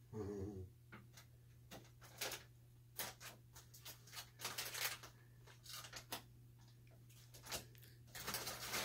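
Crinkling of a Doritos tortilla-chip bag and crunching of chips being eaten, in short irregular rustles that run together into steadier crinkling near the end. A short laugh right at the start.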